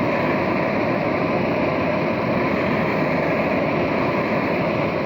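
Handheld gas torch burning with a steady, even rushing hiss as it heats a motorized bicycle engine's crankcase so the case expands to take a chilled crank bearing.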